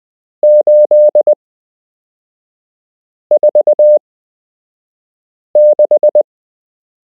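Morse code sent as a steady beep tone of about 600 Hz: three numbers, each five dots and dashes, about two seconds apart. Read from the pattern they are 7 (dah-dah-di-di-dit), 4 (di-di-di-di-dah) and 6 (dah-di-di-di-dit).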